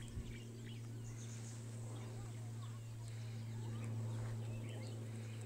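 Outdoor ambience: a steady low hum, with birds chirping faintly and on and off over it.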